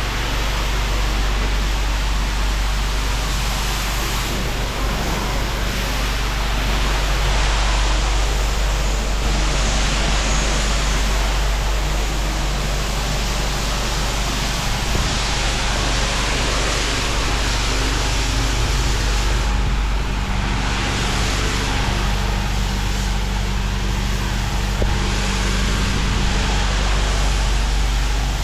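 Pressure washer lance rinsing walls and tarmac: a steady hiss of high-pressure water spray that turns brighter and duller in stretches as the jet moves across the surface, over the machine's constant low hum.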